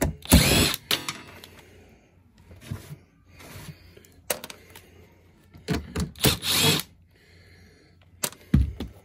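Cordless drill driving screws out of an HVAC unit's cover panel, in short runs: one just after the start and a longer pair about six seconds in. A couple of sharp knocks come near the end.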